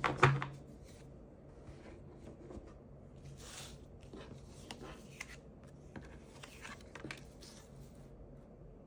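Tarot cards being handled and laid out on a table: a sharp tap about a quarter-second in, then scattered soft slides and light clicks of cards.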